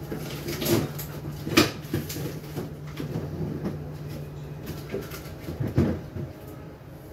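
Scattered knocks and clatters of things being handled, with the loudest about one and a half seconds in, over a steady low hum.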